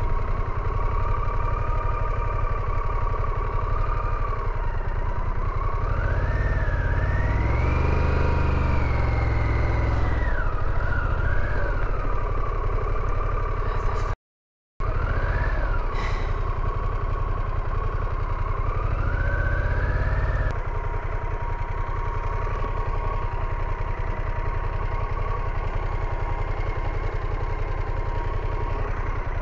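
Harley-Davidson Pan America's V-twin engine running as the motorcycle rolls at low speed, heard from the rider's seat. The revs climb and fall about a third of the way in and again about two-thirds in, then settle lower. There is a brief dropout to silence about halfway.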